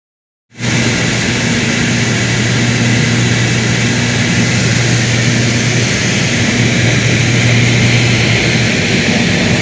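A small propeller aircraft's engine and airflow drone steadily in flight, heard from inside the cabin. The sound starts abruptly about half a second in.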